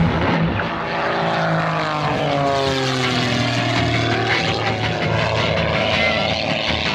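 Single-engine aerobatic propeller plane, its engine and propeller droning overhead. The pitch falls steadily from about a second and a half in, as the plane passes by.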